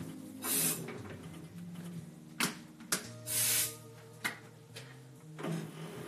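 Hands working at a metal lathe's three-jaw chuck: a few sharp metallic clicks and two short hissing bursts, over steady background music.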